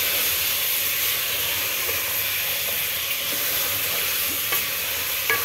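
Chicken pieces sizzling in hot oil and tomato masala in an aluminium pot as they are stirred and turned with a wooden spatula: a steady frying hiss, with a couple of light knocks near the end.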